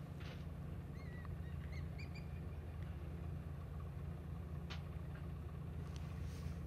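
A steady low engine hum, with a few short high chirps between about one and two and a half seconds in and a few faint clicks.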